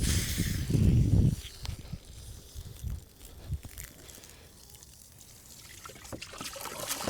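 Water from a garden hose running and splashing into a chicken waterer, now flowing freely after a bit of slushy ice pushed through the line. It is loud for the first second or so, then fainter, with a few small knocks.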